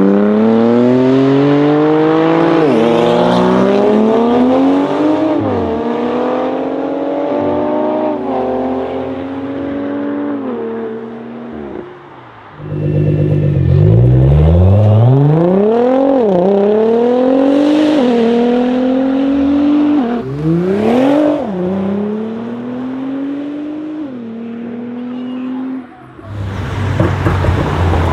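A BMW M3 and then a Nissan GT-R R35, both modified, each accelerating hard. Their engine notes climb and drop back at each of several quick upshifts. Near the end another car's exhaust gives a short low rumble.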